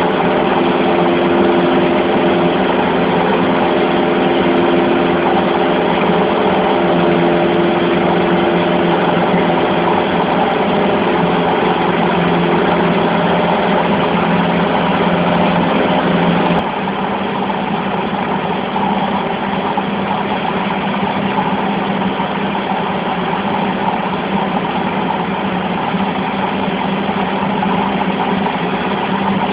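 Cessna 150's four-cylinder Continental O-200 engine and propeller running steadily in flight. About halfway through, the sound suddenly drops a little in level and its pitch pattern changes.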